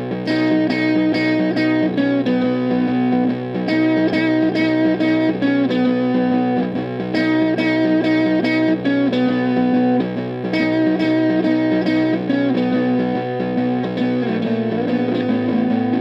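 Electric guitar, a Fender Jazzmaster in the middle pickup position, played through a Bookworm Effects Seths Fuzz pedal into a Silvertone 1472 amp. It plays a gritty, distorted strummed riff that repeats about every three and a half seconds, then settles into a held chord near the end.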